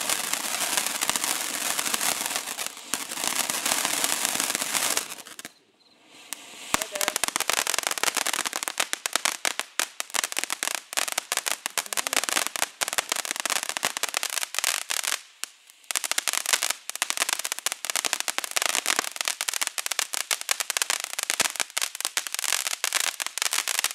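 Ground fountain firework spraying with a steady hiss. About five and a half seconds in it goes almost quiet for a moment, then starts up again with dense, rapid crackling that carries on with only a brief lull.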